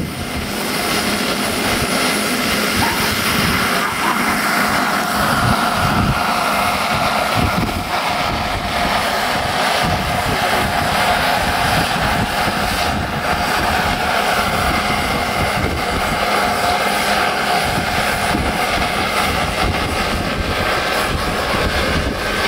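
Large radio-controlled scale model helicopter running and flying, a steady mechanical whine over rotor noise.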